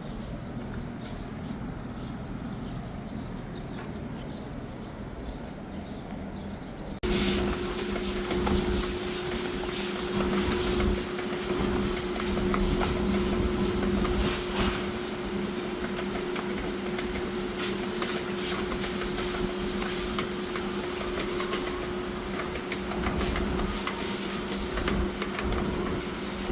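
A machine starts running abruptly about seven seconds in with a steady hum and a hiss, over quieter background noise before it.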